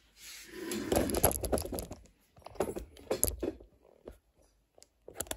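Handling noise: a close, noisy rustle in the first couple of seconds, then a scattering of light clicks and taps.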